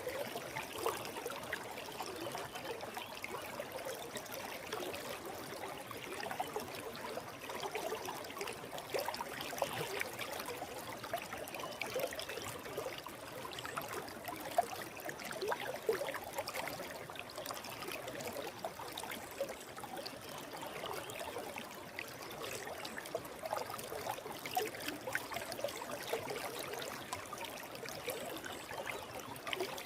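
Shallow forest stream flowing over stones, a steady trickling and babbling of water.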